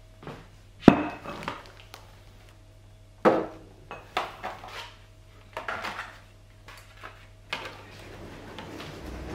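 IKEA metal cookware being handled and set down: about five separate clanks and knocks, the loudest about a second in, some ringing briefly, over a faint low hum.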